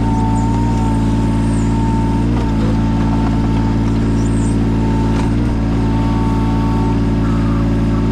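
Yanmar 017 mini excavator's diesel engine running steadily under work, with a steady high whine above the engine note. The note dips and shifts briefly about two and a half and five and a half seconds in.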